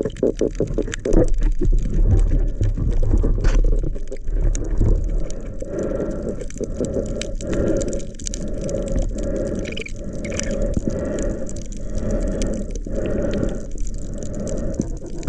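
Muffled underwater water noise, low and rushing, swelling and fading about once a second.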